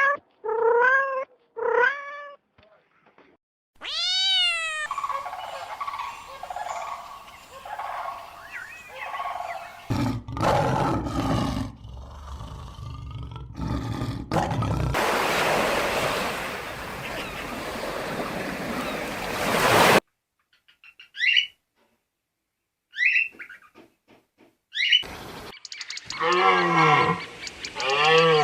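A string of different animal calls cut one after another. Short pitched calls come first, then a loud noisy roar-like stretch and a steady hiss, then a few short high chirps, and pitched calls again near the end.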